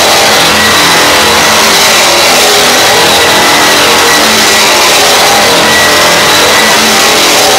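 Handheld electric stripping machine with a wide stripper wheel running against sheet steel, scouring off surface rust down to bare metal to prepare it for primer: a loud, steady abrasive hiss with a faint high whine.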